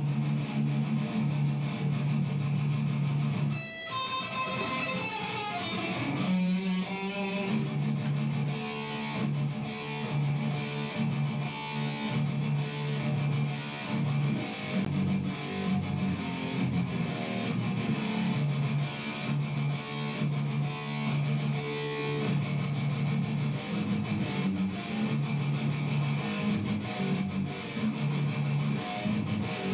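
Electric guitar playing a riff of repeated low chords, with a brief break about four seconds in.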